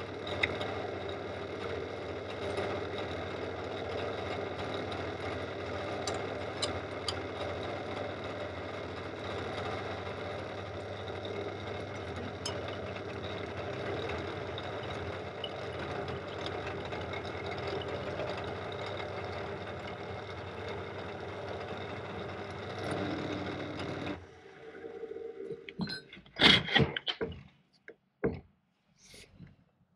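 Pillar drill running with an end mill cutting a Woodruff key slot into a metal shaft clamped in a vice: a steady motor hum with cutting noise. About 24 seconds in the motor stops, and a few sharp clicks and knocks follow as the shaft is handled in the vice.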